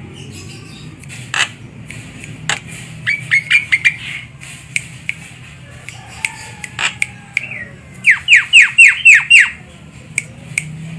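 Javan myna calling: a quick run of short notes about three seconds in, then a louder run of about seven sharp, falling notes about eight seconds in, with scattered clicks between. A low steady hum runs underneath.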